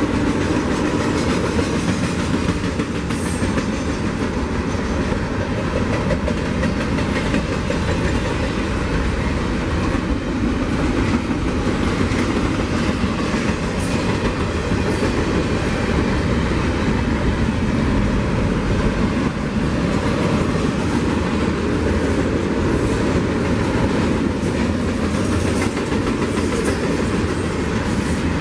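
Union Pacific double-stack container train's well cars rolling past: a steady noise of steel wheels on the rails.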